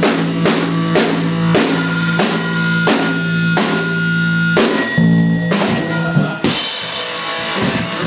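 Live rock band with drum kit, electric guitar and bass playing a song's ending: steady, evenly spaced drum hits over a held low note. About six and a half seconds in the hits stop and a bright crash-cymbal wash rings out.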